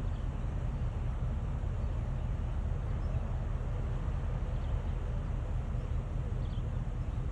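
Steady low rumble of a passing boat's engine, with a few faint bird chirps.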